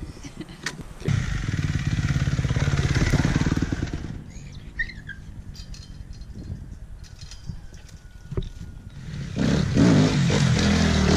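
Motorcycle engine running loud, falling away about four seconds in and coming back loud near the end.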